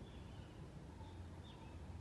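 Faint background ambience: a low steady hum, with a faint short high chirp about one and a half seconds in.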